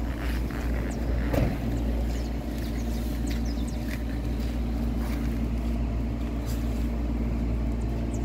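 Engine idling steadily, a low even hum, with a few faint scrapes and knocks of a leather boot being handled.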